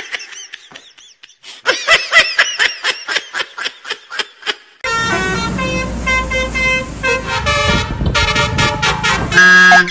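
Telolet Basuri multi-tone bus horn playing a quick run of short notes that rise and fall. From about five seconds in it sounds longer, overlapping tones over a low rumble.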